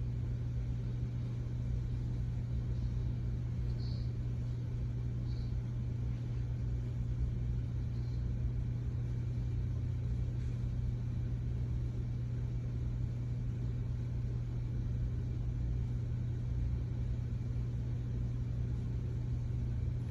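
Steady low background hum with faint hiss, unchanging throughout, with a couple of faint high ticks about four and five seconds in.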